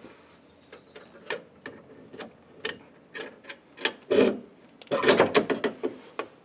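Irregular metallic clicks and clinks of steering hardware handled by hand: a bolt, misalignment spacer and the clamped heim-joint end of a drag link knocking together as they are fitted to the pitman arm. A quick flurry of clinks comes about five seconds in.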